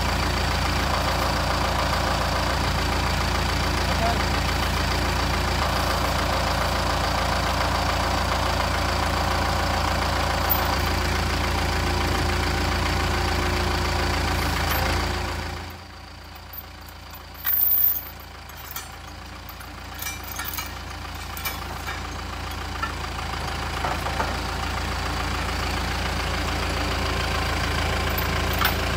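Compact diesel tractor engine idling steadily. About halfway through the sound drops away suddenly, and a loud clank and a few knocks follow before the engine sound slowly comes back up.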